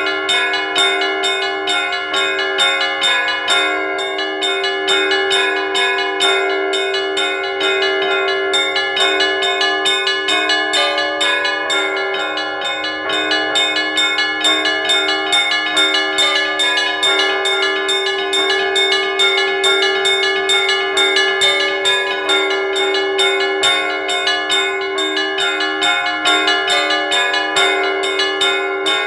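Church bells ringing in a continuous peal, several bells struck a few times a second over their sustained ringing tones.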